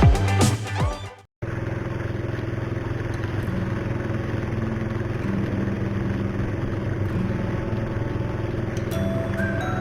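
Music fading out in the first second, then after a brief cut a steady engine drone, which is most likely a small boat's motor running at constant speed.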